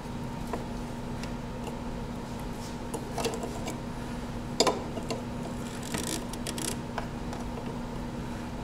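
Steady hum of the workshop with a few light clicks and knocks of a tool and small parts being handled, the sharpest about four and a half seconds in.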